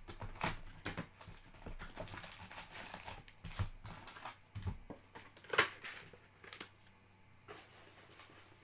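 Trading-card pack wrappers crinkling and rustling as they are handled and opened, in a dense run of quick rustles that is loudest about five and a half seconds in and dies away near the end.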